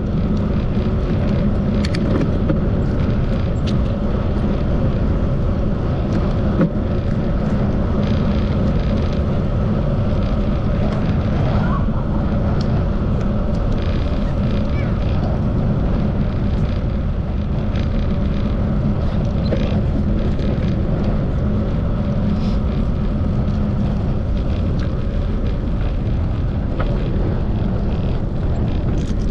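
Steady wind noise buffeting the microphone of a camera on a moving bicycle, with the low rumble of the ride underneath and a few faint clicks.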